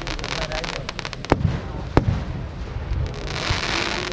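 Fireworks going off: rapid crackling, then two sharp loud bangs about a second and a third and two seconds in. Near the end comes a swelling hiss from a firework fountain spraying sparks.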